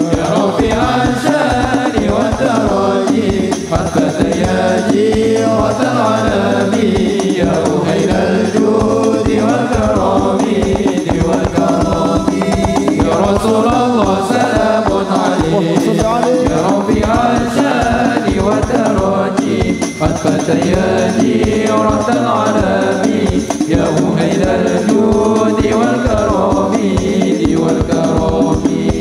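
Sholawat, Islamic devotional song, sung by male voices through microphones over a steady percussion rhythm.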